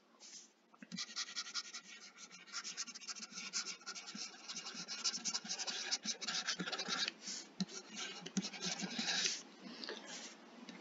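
Pen stylus scratching across a graphics tablet in quick, short repeated strokes, starting about a second in and easing off near the end.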